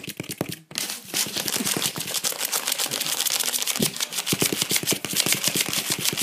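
Lhasa Apso puppy's claws tapping and scrabbling fast on cardboard, a rapid clatter of about ten taps a second with a brief break just under a second in.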